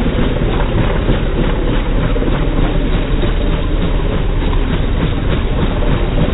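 Small two-blade helicopter hovering low and close, its rotor beating in a rapid, even rhythm over the steady engine noise.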